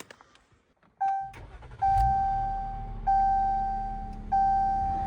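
A car's electronic warning chime: one short tone about a second in, then a run of long, steady tones of a little over a second each, each starting loud and fading. A low vehicle rumble starts underneath as the chime begins.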